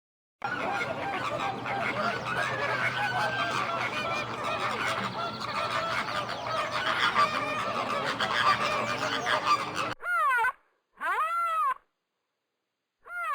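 A flock of geese honking, many calls overlapping. It cuts off abruptly about ten seconds in, and a cat meows twice, then once more near the end.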